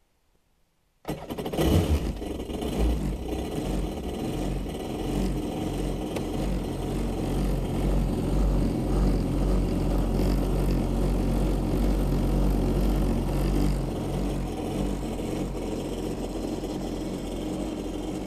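A personal watercraft's four-stroke engine starts about a second in, then runs steadily while RV antifreeze is fed through its cooling system for winter storage.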